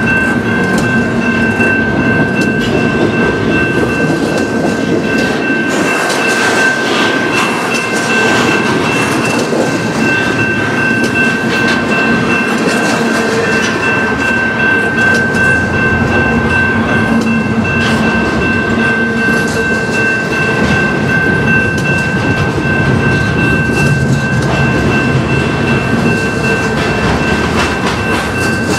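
Double-stack intermodal container cars rolling past at speed, their wheels clattering over the rail joints in a steady, unbroken rumble. Over it runs a steady high ringing tone from the level crossing's warning bell.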